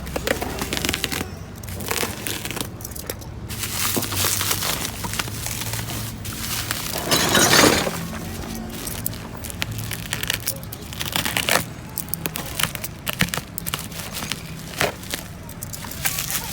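Broken glass pieces clinking and knocking as a smashed parcel is unpacked, with a louder scraping rustle about seven seconds in.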